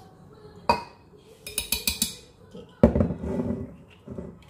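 A metal spoon clinking against a glass blender jar as fish sauce is spooned in: a sharp click, then a quick run of clinks. A heavier knock comes about three seconds in, followed by a short clatter.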